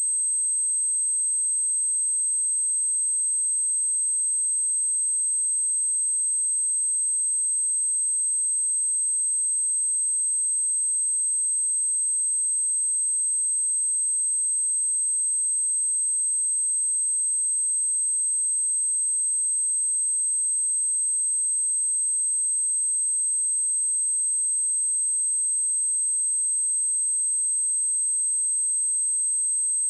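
Steady, unbroken high-pitched pure sine tone at 8264 Hz, a synthetic speaker-test tone of the kind played to shake water and dust out of a phone or speaker grille.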